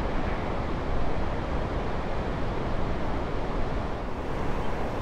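Steady rush of ocean surf breaking on the beach, mixed with wind buffeting the microphone.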